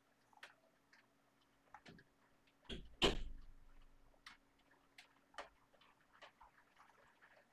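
Faint, sparse light clicks from a computer mouse and keyboard, with one louder thump about three seconds in.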